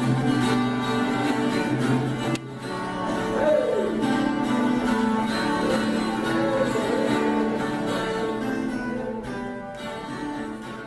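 Instrumental music with strings and plucked guitar, fading out near the end.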